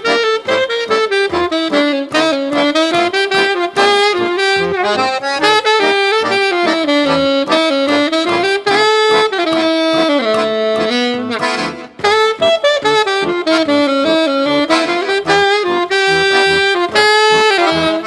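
Alto saxophone playing a flowing jazz melody, with a long held note past the middle, over accordion accompaniment with an even, pulsing bass.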